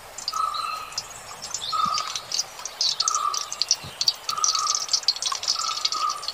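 Insects chirping in a dense crackling, ticking chorus, with a short steady note repeating about once a second.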